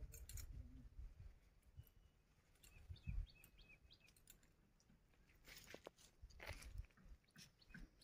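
Near silence: faint outdoor ambience with a soft thump about three seconds in, light rustling a little later, and a few faint high chirps.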